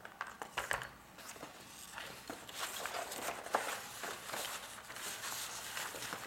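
Paper rustling and crackling in irregular bursts as a silicone-backed painting and a sheet of silk brocade are handled and lifted.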